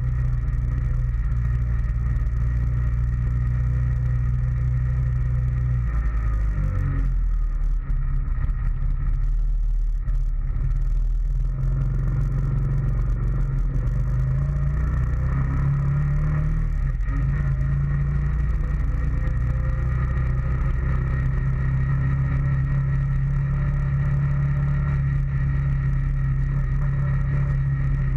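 Honda Foreman ATV engine running under way, picked up close by a camera on the front rack. The engine note drops and picks up again about six seconds in, around ten seconds, and again around seventeen seconds.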